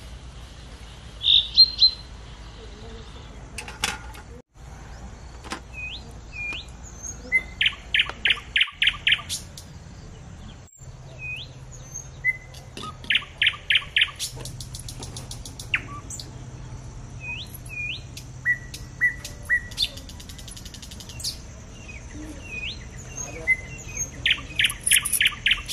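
Several birds chirping and calling: short runs of five or six quick, bright notes that come back several times, with single short upswept whistles in between.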